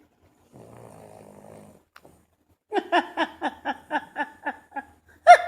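A sleeping dog gives one drawn-out, buzzy snore. About a second later comes a fast run of short, pitched 'ha' pulses, about four or five a second, each falling in pitch, sounding like someone laughing, with a louder burst near the end.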